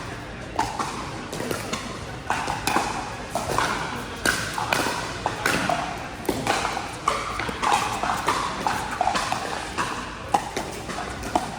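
Pickleball paddles striking a hard plastic pickleball in rally play: a run of sharp, irregular pocks, about one or two a second.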